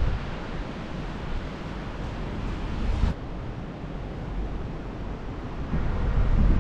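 Wind buffeting the microphone: a low rumble over a steady hiss, easing after the first moment and building again near the end.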